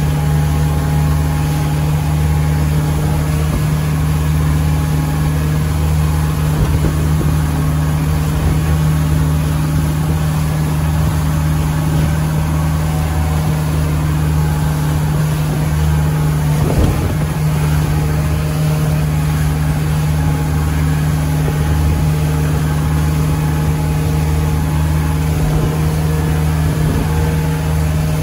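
Motorboat engine running steadily at speed while towing an inflatable tube, its drone holding an even pitch, over the rushing hiss of the wake.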